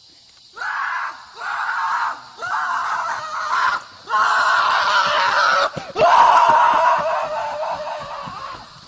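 A series of about five loud screams with short gaps, each longer than the last, the final one fading away.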